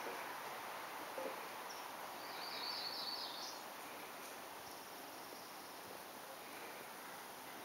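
Quiet outdoor ambience with a steady faint hiss, a soft tap about a second in, and a brief high chirping trill about two and a half seconds in.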